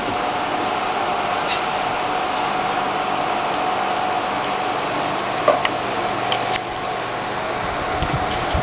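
Steady mechanical hum and hiss with a constant faint whine, like room air conditioning, with a few soft clicks past the middle.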